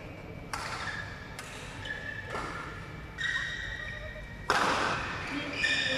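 Badminton rackets striking a shuttlecock in a rally: sharp hits about a second apart, with the loudest strike about four and a half seconds in. High squeaking tones, typical of court shoes, follow the hits and echo in the large hall.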